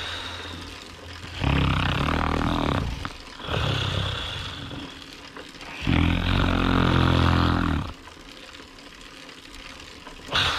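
A man snoring loudly: three long, rasping snores about two seconds apart, with quieter stretches between them.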